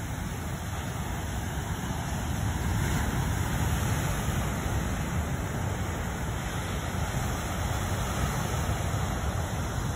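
Ocean surf breaking on a rocky shore, a steady wash of waves that swells a little a few seconds in, with wind rumbling on the phone's microphone.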